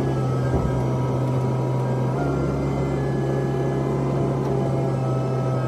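Komatsu PC128 excavator's diesel engine running steadily, heard from inside the cab while the arm and bucket work; the low hum grows fuller about two seconds in.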